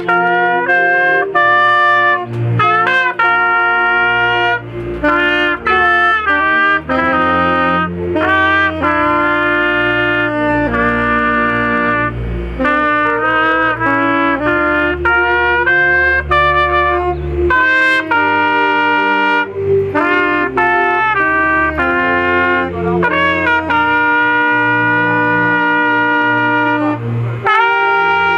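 Brass band playing a hymn tune: held notes moving in a steady melody over chords and a bass line, with the trumpet prominent.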